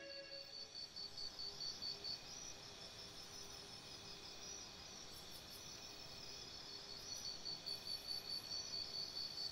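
Crickets chirping in a high, fast, evenly pulsing trill. It fades for a few seconds in the middle and comes back strongly near the end.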